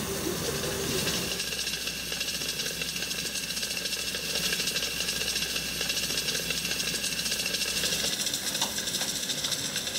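Standing steam cogwheel locomotive hissing steam, with a fast, even mechanical rattle from its machinery. A low rumble drops away about eight seconds in.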